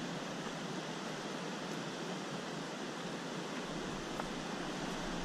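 Steady rushing of a glacial meltwater stream, an even hiss that holds without rises or breaks.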